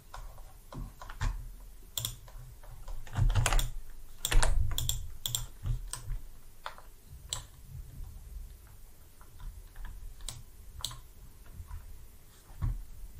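Irregular clicks and taps of a computer keyboard and mouse, a few at a time with short pauses between, the busiest run about four to five seconds in.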